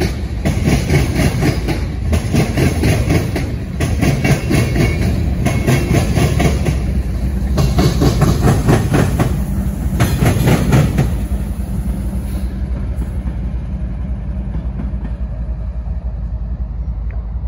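Freight train passing close by: loaded tank cars clatter over rail joints, wheels clicking in quick rhythm. The rear distributed-power locomotive, a BNSF GE ES44DC diesel, goes by, and about eleven seconds in the clatter stops and the sound drops to a steadier, quieter low noise as the train moves away.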